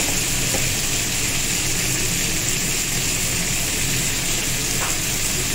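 Cauliflower and potato pieces frying in mustard oil in a kadai, a steady sizzle, over a low steady hum.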